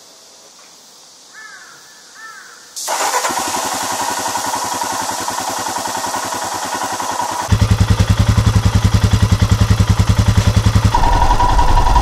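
Royal Enfield Himalayan's single-cylinder engine, fitted with a Booster Plug, started up and running. Two faint chirps come first, then the engine sound comes in suddenly about three seconds in. It settles into a louder, deeper, even idle beat of about ten pulses a second from about halfway.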